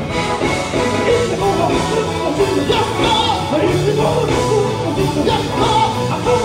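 Gospel group singing live with band accompaniment, with steady bass notes and drums under the voices.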